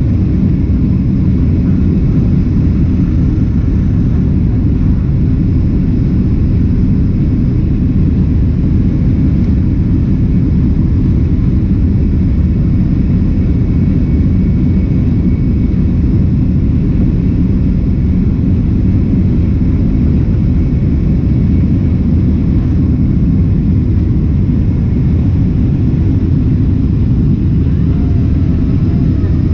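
Steady, loud low rumble of a Boeing 767's jet engines and rushing air, heard from inside the passenger cabin.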